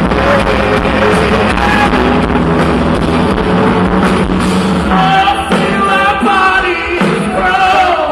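A live band playing rock-pop through a large open-air PA, heard from within the crowd. The music is loud, with sustained instrumental notes, and a lead vocal comes in about five seconds in.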